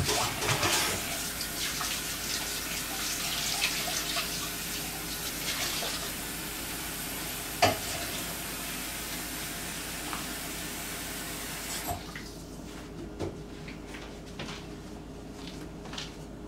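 Kitchen tap running into a sink for about twelve seconds, then shut off suddenly. There are a few light clicks, and one sharp knock about halfway through.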